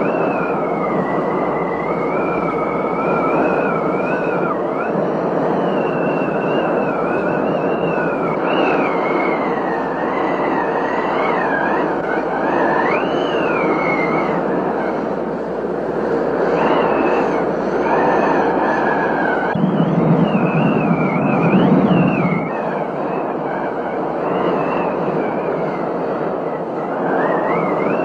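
Steady rush of a heavy rainstorm. A high whistling tone wavers up and down through most of it, and a deeper rumble swells for a couple of seconds about two-thirds of the way in.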